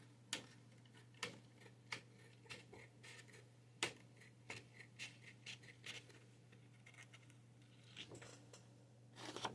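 Faint, irregular clicks and scrapes of a thin clear plastic sheet being cut into a strip, over a low steady hum.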